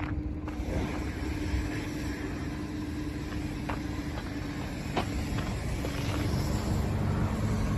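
Toyota Hiace van's 1TR 2.0-litre petrol four-cylinder idling steadily, with a few light clicks over it.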